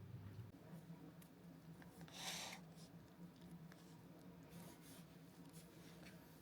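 Near silence: a faint low hum, with one brief soft rustle about two seconds in and a few faint ticks.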